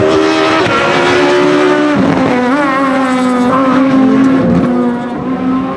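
Renault Clio Super1600 rally car's 1.6-litre four-cylinder engine running high in its revs through a corner. The pitch dips and climbs back about two seconds in, and the sound eases a little near the end as the car pulls away.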